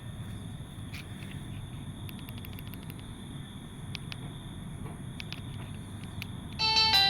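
Steady low background hum and hiss with a few faint clicks, then near the end a Nokia 3500 classic's speaker starts playing a polyphonic MIDI ringtone, several clear synthesized notes at once, much louder than the background.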